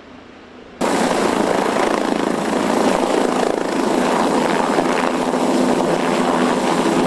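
MQ-8C Fire Scout unmanned helicopter's turbine and rotor running loud and steady. The sound cuts in abruptly about a second in.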